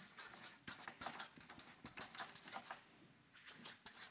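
Marker pen writing on flip-chart paper: a faint, quick run of short strokes, with a brief pause about three seconds in.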